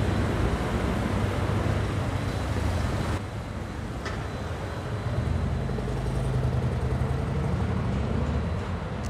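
City street traffic noise, with a vehicle engine running close by as a low steady hum. The hiss drops suddenly about three seconds in, and the engine hum grows stronger a few seconds later.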